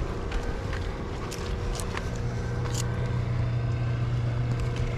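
A boat engine running steadily, its low hum growing louder about two seconds in, with a few scattered sharp ticks.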